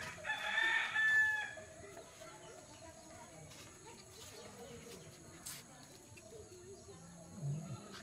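A rooster crows once, a single call of about a second shortly after the start, followed by quiet outdoor background.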